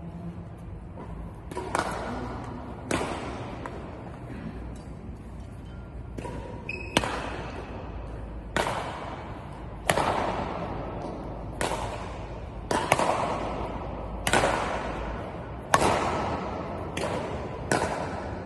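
Badminton racket (Yonex Astrox 99 Pro, strung with BG65 Titanium at a tight 34 lb) hitting a shuttlecock again and again: about a dozen sharp string strikes, one every second or so, each followed by a long echo.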